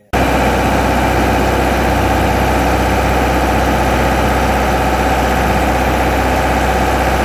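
Boat engine running steadily at a constant speed, heard loud and close from on board. It cuts in suddenly just after the start.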